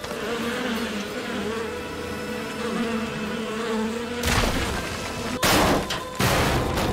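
Animated-show sound effects: a low, wavering buzzing drone, then from about four seconds in three loud crashing bursts of rock and rubble as debris is blasted aside.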